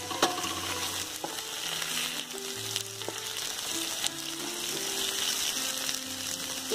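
Sliced onions, tomato wedges and green chillies frying in hot oil in a pan, sizzling steadily. A wooden spatula stirs the pan and knocks against it a few times. Soft background music plays underneath.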